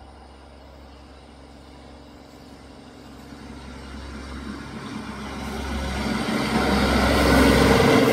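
Plasser Unimat split-head tamping machine running along the rails towards the listener, its diesel engine and wheels on the track growing steadily louder and loudest as it comes alongside near the end.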